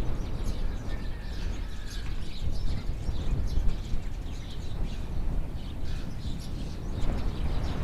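Small birds chirping in many short, overlapping calls over a steady low rumble.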